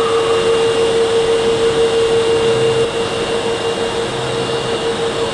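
Osaka Metro subway train at the station platform, its electrical equipment giving a steady, even-pitched whine over a constant rumble.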